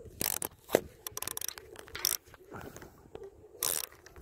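Fishing reel's clicker ticking in short irregular spurts as a hooked shark pulls line off, among knocks and scrapes of gear being handled on a plastic kayak.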